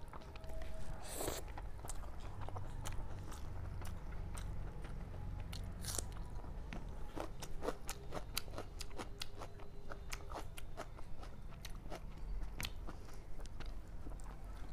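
Close-up eating sounds: chewing and wet mouth clicks and smacks, scattered irregularly, while fried rice is mixed by hand on the plate.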